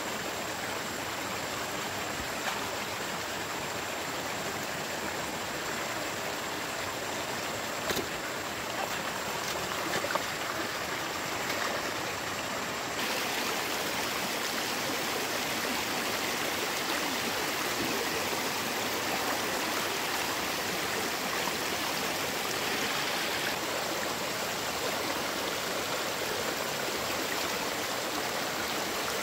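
Stream water rushing and splashing over the slats of a bamboo fish trap, turning brighter and hissier about halfway through, with a few faint knocks.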